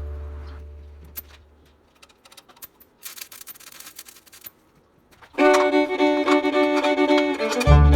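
Background music: one track fades out over the first two seconds, a few quiet seconds follow with faint scattered clicks and hiss, and an upbeat fiddle tune in a bluegrass style starts about five seconds in, with a bass line joining near the end.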